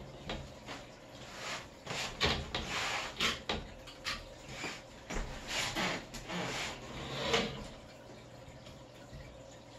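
Razor blade slicing the excess window-screen mesh along the outer edge of the screen frame, in a string of short, irregular scraping strokes that die away about seven and a half seconds in.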